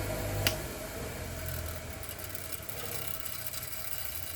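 Clarke bench grinder's electric motor humming steadily, then a click about half a second in, after which the hum drops and fades as the motor winds down.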